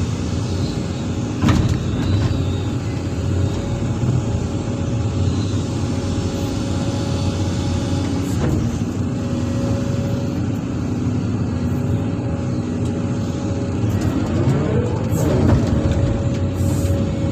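Sany SY365H Pro excavator's diesel engine running steadily under working load, with hydraulic whine as the boom and bucket swing and dump. There are sharp knocks about a second and a half in and again near the middle, and a rising-then-falling whine a little before the end.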